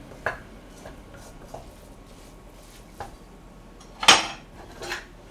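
Light knocks of a wooden spatula against a metal frying pan, then a loud metal clatter of kitchenware about four seconds in and a smaller clank just under a second later.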